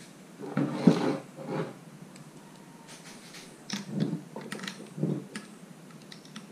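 Hands handling a Fox Float X2 mountain-bike rear shock on a tabletop: a few knocks and scrapes as it is picked up and turned over, with light clicks in between, in two clusters about a second and about four seconds in.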